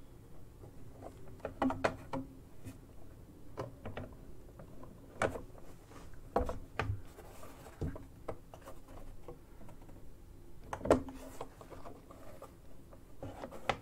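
Scattered light clicks and taps of plastic figure parts being handled and fitted onto their base and support rod, with one sharper knock about eleven seconds in.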